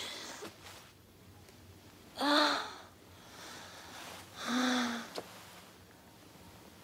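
A woman sobbing: two cries of about half a second each, each falling in pitch, with breathy gasps around them.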